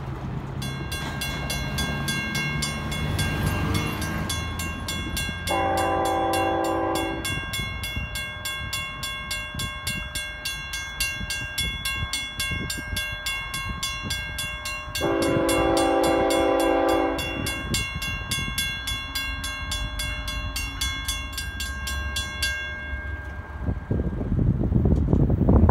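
Railroad crossing bell ringing rapidly and steadily while the gates lower, falling silent a few seconds before the end. An approaching train sounds its horn in two long blasts, and a low rumble builds near the end.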